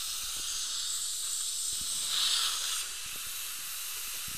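Steady hiss of a dental suction tip held in the patient's mouth, with a brief louder rush about two seconds in.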